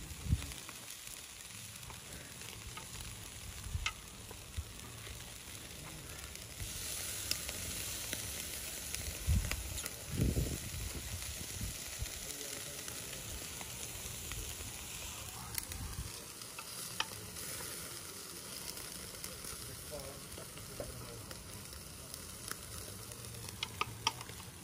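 Food sizzling as it fries, a steady hiss with scattered small pops and a few dull knocks about ten seconds in.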